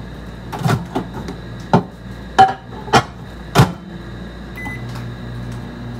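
Several knocks and clunks of dishes or a door, then a short keypad beep about four and a half seconds in, after which a microwave oven starts running with a steady hum.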